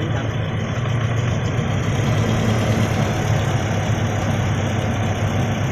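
Toyota Kijang Innova four-cylinder VVT-i petrol engine idling with a steady low hum. The engine has a misfire that makes it idle unevenly and shake.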